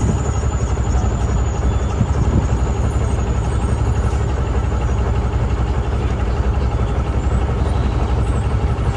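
A vehicle engine running steadily at low speed, a continuous low rumble with no breaks.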